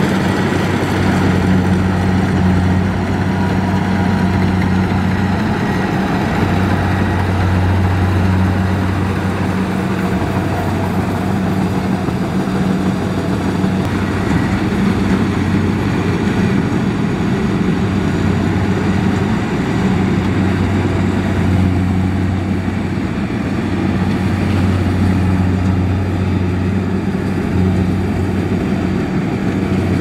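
Kubota DC70 rice combine harvester working through the crop: a steady, loud engine hum with mechanical noise from the machine, its low drone swelling and easing every few seconds.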